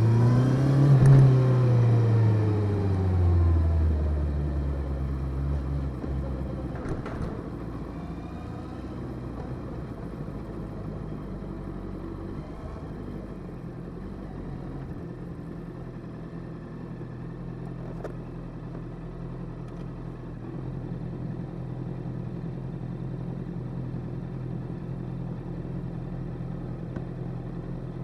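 Motorcycle engine slowing down, its pitch falling over the first few seconds, then idling steadily.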